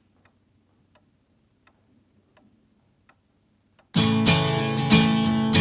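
Faint, even ticking about every 0.7 seconds, like a clock, in a quiet room; about four seconds in, loud strummed guitar music starts abruptly.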